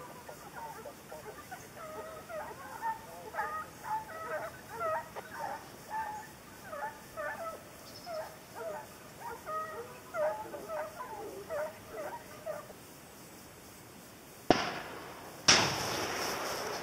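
A pack of hunting hounds giving tongue in the distance, a run of short yelping bays while trailing wild boar. Near the end, two sharp cracks about a second apart, the second followed by a fading rushing noise.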